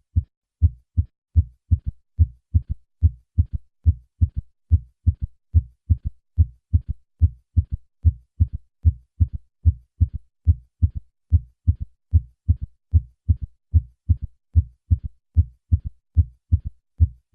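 A recorded heartbeat playing steadily: a regular run of short, low thumps. It includes a third heart sound, a faint early-diastolic sound just after the louder second heart sound, as heard with a ventricular gallop.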